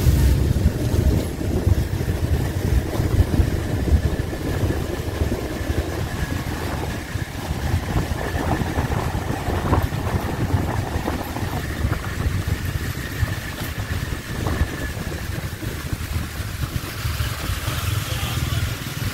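Motor vehicle engine and road rumble heard while driving along a road: a steady, continuous running sound with no sharp events.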